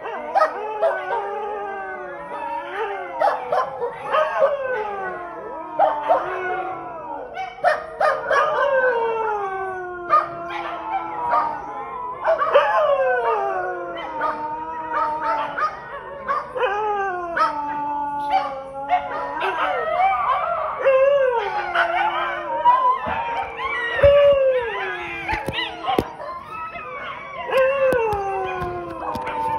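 Several street dogs howling together, long overlapping howls that slide down in pitch, with short sharp barks breaking in between.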